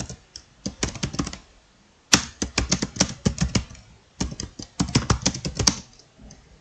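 Laptop keyboard being typed on quickly: runs of rapid key clicks in three bursts, with short pauses between them.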